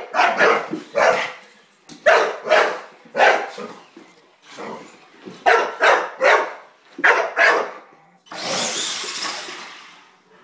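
A dog barking in quick clusters, a dozen or so short barks, while playing at chasing a remote-control truck. About eight seconds in, a longer rushing noise starts and fades away over about two seconds.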